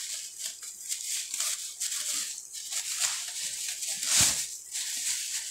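Plastic wrapping crinkling and rustling as it is handled and pulled out of a cardboard box, with a louder rustle about four seconds in.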